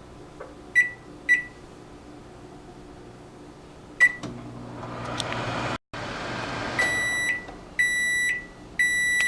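Microwave oven: two short keypad beeps and a third as it starts, then the oven running with a low hum and fan noise. After a brief dropout, three long beeps about a second apart signal that the cooking time is up.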